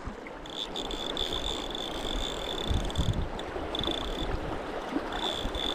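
River water rushing steadily, with a thin high tone that comes and goes over it and a few soft knocks about halfway through.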